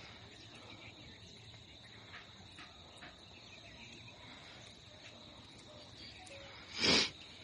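Crickets trilling steadily in a high, even tone, with a few faint ticks. About seven seconds in, a short loud rushing noise lasting about a third of a second.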